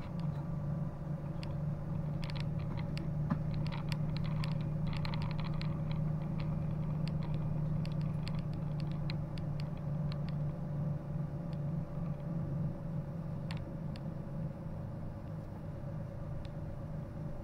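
Steady mechanical hum with a constant higher whine, overlaid by light clicking and rattling that is busiest in the first several seconds.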